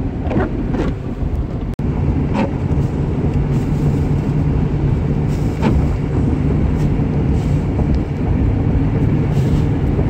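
Steady road and engine noise heard inside a truck's cab at highway speed, a low rumble with a constant hum underneath.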